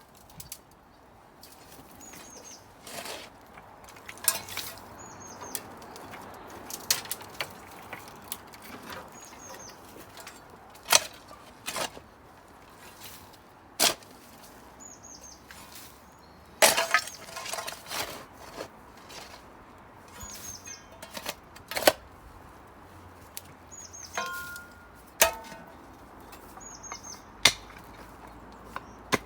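Hand digging in soil and rubble: irregular scrapes and sharp strikes every second or two, a few with a short metallic clink. Behind it a small bird repeats a short high chirp about every two seconds.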